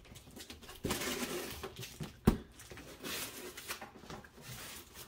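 A cardboard shipping box being opened by hand: packing tape along the lid seam cut and pulled and the cardboard flaps scraped and handled, in irregular rustles, with one sharp knock about two seconds in.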